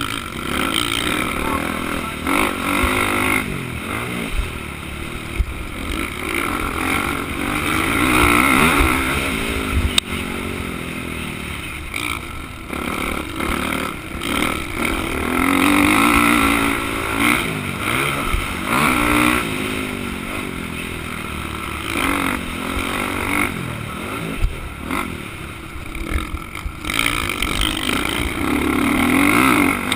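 Motocross dirt bike engine, heard from the rider's helmet, revving hard and dropping again over and over as the rider accelerates, shifts and brakes around the track.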